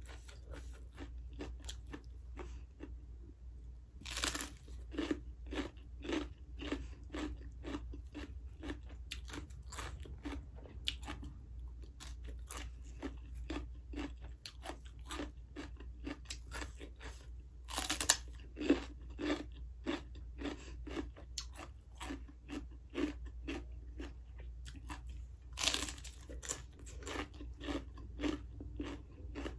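Raw, crisp vegetable being bitten and chewed: a steady run of crunching chews, with three louder, sharper bites, a few seconds in, around the middle and near the end.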